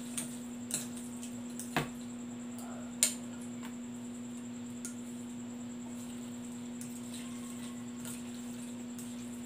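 Plastic forks clicking against a glass plate as instant noodles are tossed and mixed: a few scattered light clicks, the sharpest about three seconds in, over a steady low hum.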